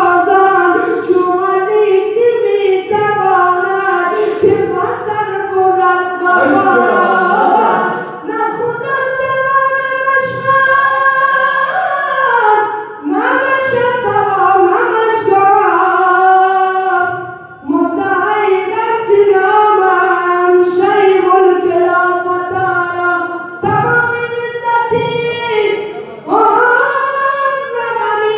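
A young man's solo voice singing through a microphone and loudspeaker. The notes are long, held and ornamented, in phrases of several seconds with short breaks for breath.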